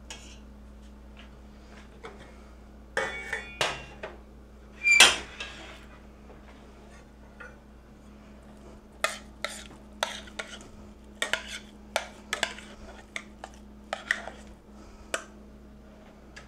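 Metal kitchen utensils clinking and scraping against a Dutch oven and a saucepan: a few clanks with one loud ringing strike about five seconds in, then a run of sharp taps, about two a second, from around nine seconds to fifteen.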